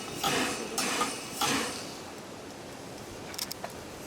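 Narrow-gauge steam locomotives' exhaust beats, a regular chuff about every half second with hiss, fading out about two seconds in. A few faint sharp clicks follow near the end.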